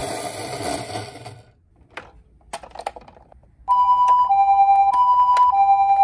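A toy ambulance's whirring rattle fades out, followed by a few light clicks. Then, about two-thirds of the way in, a Japanese two-tone 'pee-poh' ambulance siren starts and alternates between a high note and a low note, each lasting a little over half a second.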